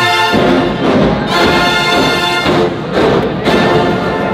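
Marching band brass playing slow, held chords, the chord changing every second or so.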